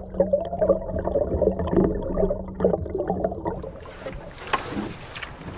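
Canoe paddle water heard with the microphone underwater: muffled bubbling and gurgling with many small pops and knocks as the paddle strokes through. About three and a half seconds in, the sound turns clearer and brighter as the microphone nears the surface, with one sharp splash-click shortly after.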